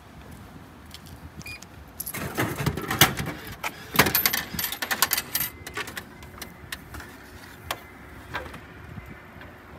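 A steel can of coffee dropping through a DyDo drink vending machine after a button press: a burst of clanking and rattling for about three and a half seconds, starting about two seconds in. A few light clicks follow near the end as the pick-up flap is pushed open.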